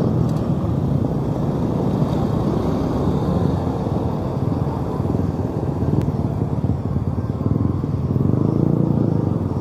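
Motorcycle engine running with a steady low rumble that grows a little louder near the end.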